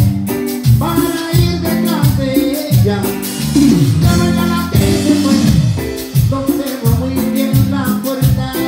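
A live Latin dance band playing: electric bass and saxophones over a steady beat of congas and drum kit.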